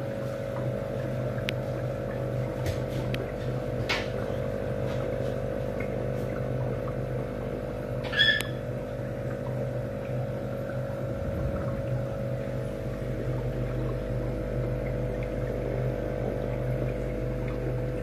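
Aquarium pump humming steadily as it drives the air stone. A short high-pitched chirp breaks in once, about eight seconds in.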